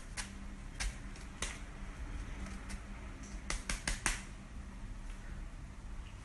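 Scattered sharp clicks and light crackles of a wicker cat house as cats scrabble inside it after a feather wand toy, bunched into a quick run of clicks about three and a half to four seconds in.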